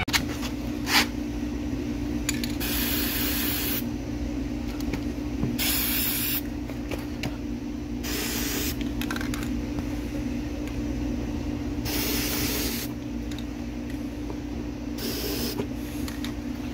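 Aerosol spray-paint can spraying in short bursts, about five of them a few seconds apart, each a hiss lasting under a second or so.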